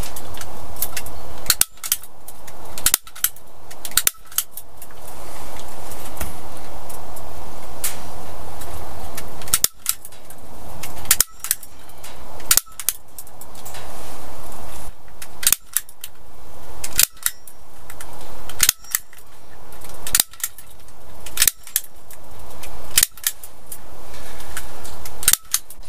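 A series of sharp, loud clicks or knocks: three about a second apart near the start, then after a pause a longer run of about ten, roughly one every one and a half seconds. Between them lies a steady rushing hiss.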